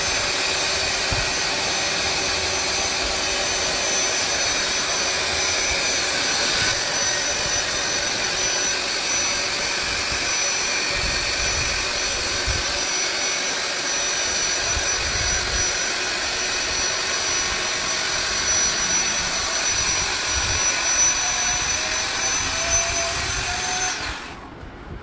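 Handheld corded electric air pump running steadily with a high whine as it inflates an inflatable pool's inner chamber. A rising tone creeps in near the end, and the pump cuts off about 24 seconds in.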